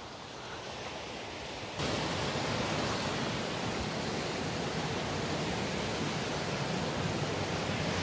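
Mountain stream rushing over rocks in a gorge: a steady wash of water noise that steps up suddenly about two seconds in and stays level.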